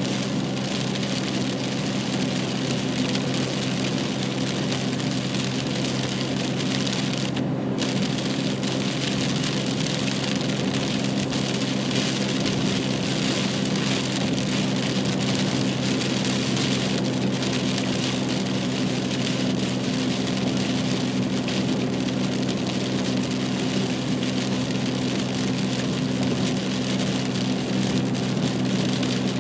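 Rain falling on a moving car, heard from inside, over the steady hum of the engine and tyres. The rain noise cuts out for a moment about seven and a half seconds in.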